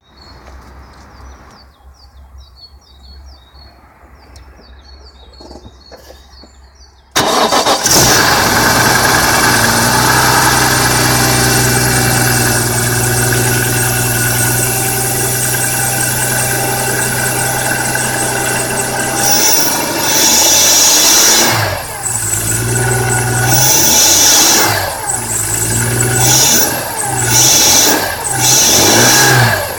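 BMW E46 M3's S54 inline-six starting up suddenly about seven seconds in and settling to a steady idle, then revved several times in the last ten seconds, with a high scraping, chirping sound that comes up with the revs. The owner takes this for a scraping, chirping, grinding fault noise.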